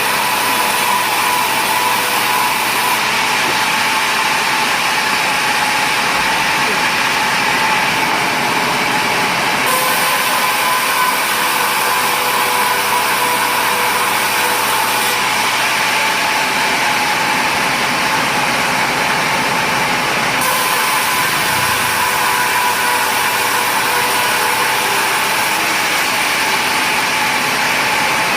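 Sawmill machinery running steadily, a loud even noise with a constant whine through it.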